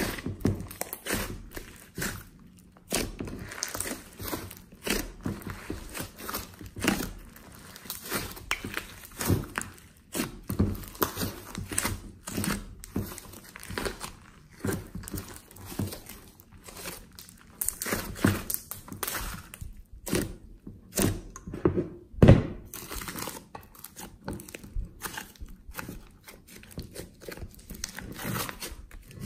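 A large batch of slime being kneaded, squeezed and pulled apart by hand in a glass dish, making an irregular run of squishy clicks and pops. One pop a little after two-thirds of the way through is the loudest.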